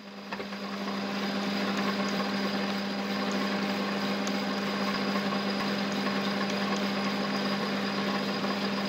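Metal lathe running steadily with a constant hum, while a hand file is held against a ring spinning on a ring mandrel, adding an even scraping hiss. The sound comes up within the first second and then holds steady.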